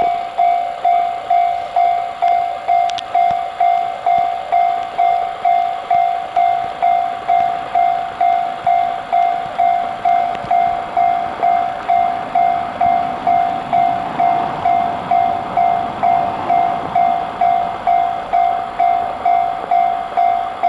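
Japanese level-crossing alarm ringing its electronic clanging tone at about two strikes a second, warning that a train is approaching. An approaching train's running noise swells beneath it about two-thirds of the way through.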